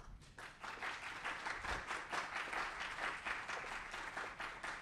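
An audience applauding, many hands clapping, building up within the first second and thinning out toward the end.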